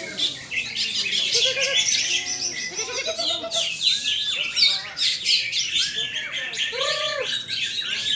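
Many caged songbirds singing at once in a songbird contest: a dense, continuous layer of high chirps and trills, with repeated short arched whistles lower down.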